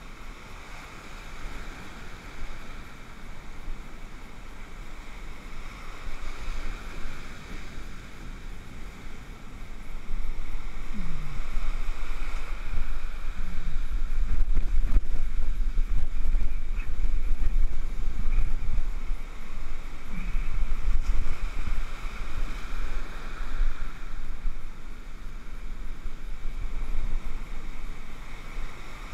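Rough storm surf rushing and washing up the beach, under heavy wind rumble on the microphone; it gets louder about ten seconds in as the foam surges in close.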